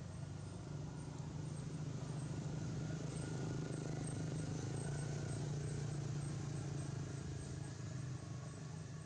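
Steady low outdoor hum, slightly louder in the middle, with faint rapid high ticking over it.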